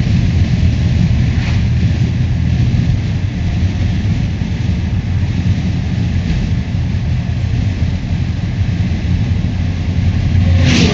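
Car's six-cylinder engine and road noise droning steadily at cruising speed, with the rebuilt 4L60E automatic transmission in fourth gear and the torque converter locked up. The shifts have gone through normally, and the driver takes everything to be working fine.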